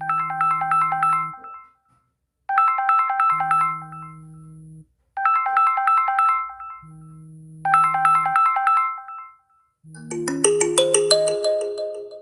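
Samsung Galaxy S25 Ultra ringtones playing. A short melodic phrase repeats four times, about every two and a half seconds. About ten seconds in, a different, busier ringtone starts.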